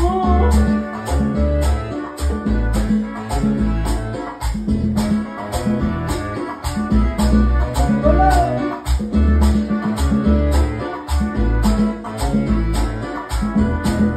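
Live salsa band playing: congas and a steady high ticking percussion rhythm over a pulsing bass line.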